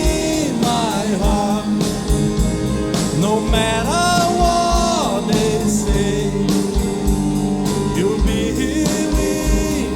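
Live pop-rock band playing with drums, bass, electric guitars and keyboard, and a sung vocal line that comes and goes over the accompaniment.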